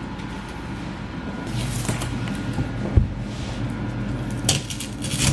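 Sound panel being pulled off a plaster wall: rough scraping and tearing noise in two stretches, with one sharp thump about three seconds in, over a steady low hum.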